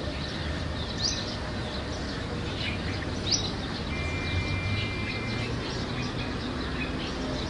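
Open-air background noise with birds chirping now and then: two quick rising chirps, about one and three seconds in, and a short held whistle near the middle.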